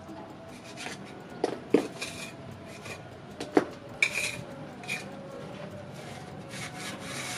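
Small metal carving tool scraping along grooves in wet cement render, in a run of short scratchy strokes with a few sharp clicks of metal on the surface in the first half. The strokes are the carving of joint lines to make the render look like natural stone.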